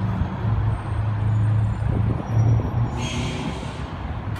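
Street traffic noise with a steady low engine rumble from a passing or idling motor vehicle, and a short hiss about three seconds in.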